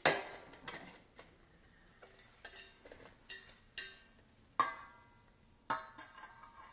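Blueberries tipped from a stainless-steel colander onto a paper-towel-lined metal sheet pan, with a loud clatter at the start. Then scattered knocks and taps, the loudest about four and a half seconds in, as the berries are spread out by hand and the pan and colander are handled.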